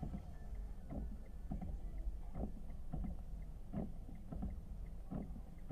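Car windshield wipers sweeping back and forth over a rain-wet windshield, a swish about every two-thirds of a second, over the low rumble of the car, heard from inside the cabin.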